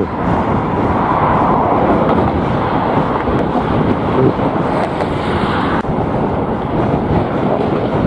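Strong wind blowing across the microphone: a loud, continuous rushing noise with road traffic mixed in. The upper hiss drops away suddenly about six seconds in.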